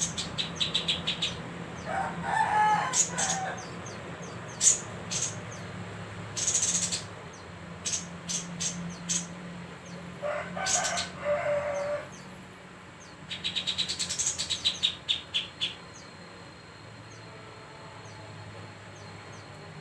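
Kapas tembak songbird singing in loud bursts: sharp high single notes and quick rapid-fire runs of short notes, with two longer, lower calls about two and ten seconds in, over a steady low hum.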